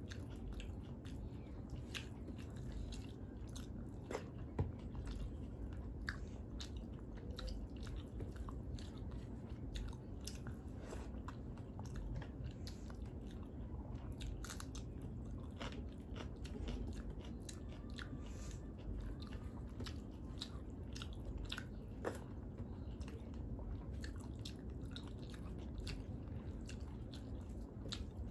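Close-up chewing of a mouthful of rice, dal and fish eaten by hand: wet mouth smacks and many short clicks throughout, with one stronger click about four and a half seconds in.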